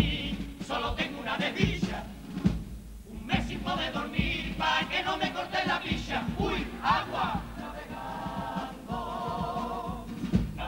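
Carnival comparsa choir singing to guitar accompaniment, the voices held with vibrato over a steady low beat.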